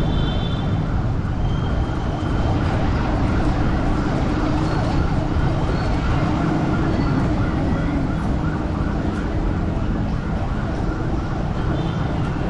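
A siren yelping fast, rising and falling about three times a second, over the steady drone of motorcycle-tricycle engines and wind noise from riding along in the convoy.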